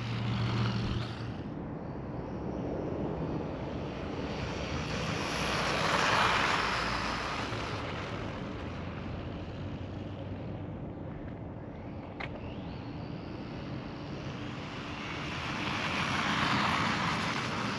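Small RC truck with a Hobbywing 2435 4500 KV brushless motor on a 3S battery running flat out on asphalt: motor whine and tyre noise. The sound grows louder twice, about a third of the way in and near the end, with one short click about 12 seconds in.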